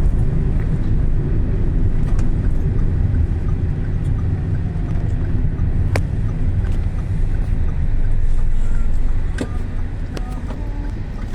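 Vehicle travelling on a road: a steady low rumble of engine and road noise, with a few sharp clicks about six seconds in and again near the end.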